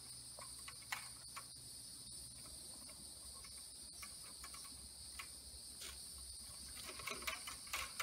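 Faint scattered clicks and light scrapes of an electrician's hand tool working on the cable wires at a switch box, over a steady high-pitched hiss.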